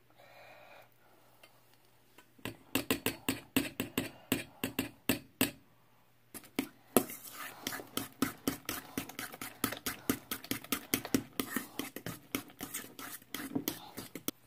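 A metal utensil beats a batter of banana, egg and peanut butter in a stainless steel mixing bowl, with rapid clinks and scrapes against the bowl. The clinking starts about two seconds in, pauses briefly about halfway, then goes on faster.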